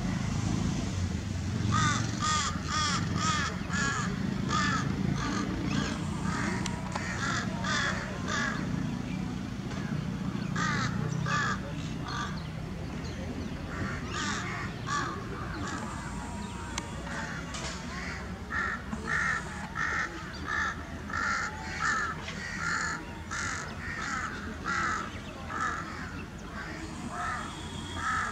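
Crows cawing over and over in long runs of short calls, about two a second, with a few brief pauses. A low steady rumble lies underneath through the first half.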